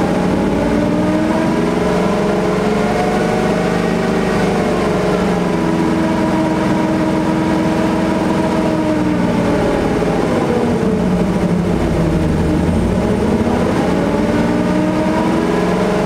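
1984 Chevy C10 pickup's engine revved several times, the pitch climbing and easing back down in slow swells of a few seconds each. It is a test rev to check that the freshly worked-on belt drive holds together.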